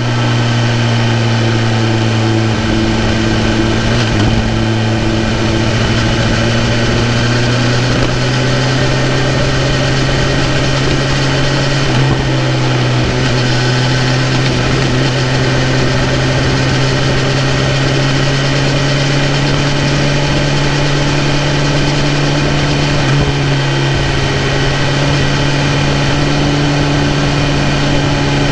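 2018 BMW S1000RR's inline-four engine running steadily while the bike is ridden, its note holding an even pitch that creeps up slightly over the stretch.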